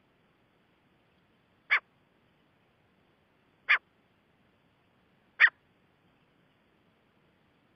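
Gray francolin calling: three short, sharp notes about two seconds apart.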